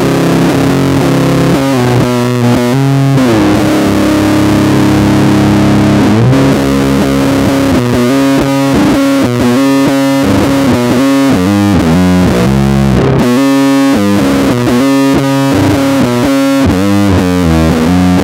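Newly strung four-string electric bass played fingerstyle through distortion: a metal riff, with one note held for a couple of seconds a few seconds in, then fast repeated notes.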